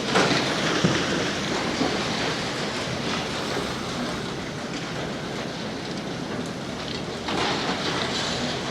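Demolition excavator pulling rubble and debris out of a building: a steady crackling, clattering noise of material being dragged and falling, with a few knocks in the first seconds and a louder stretch near the end.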